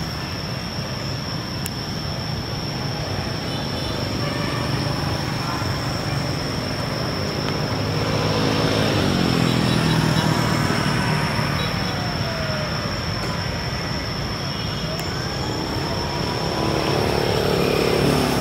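Road traffic noise, with an engine passing by and loudest about halfway through, over a constant high-pitched whine.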